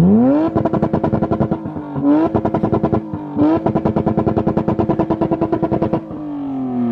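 Mitsubishi Eclipse engine revved to redline and held on the rev limiter, its note flat and stuttering rapidly as the limiter cuts in. It dips briefly twice and climbs back to the limiter, then drops away near the end as the throttle is released.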